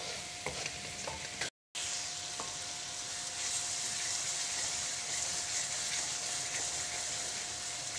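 Onion and spice masala sizzling in hot oil in an aluminium kadhai while it is stirred with a wooden spoon, with small scraping clicks of the spoon against the pan. The sound cuts out briefly about a second and a half in, and the sizzling grows louder about halfway through.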